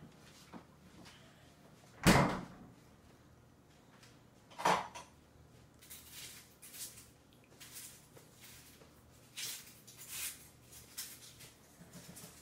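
A sharp knock about two seconds in, another just before five seconds, then a scatter of softer knocks and taps.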